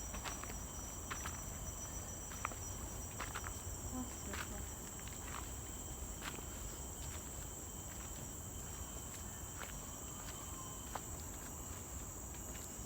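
A steady, high-pitched chorus of insects droning in the forest, with scattered irregular footsteps on a dirt path.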